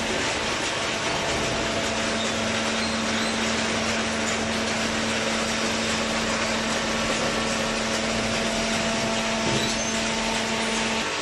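Hydraulic cardboard baler running: a steady hum, typical of its motor and pump, sets in about a second and a half in and stops just before the end, over constant machine noise.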